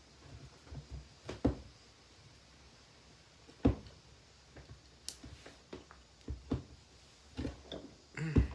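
Irregular clicks, knocks and clatter of the hard plastic parts of a Bissell handheld vacuum being handled and pried at to break a piece off. The loudest knocks come about four seconds in and near the end.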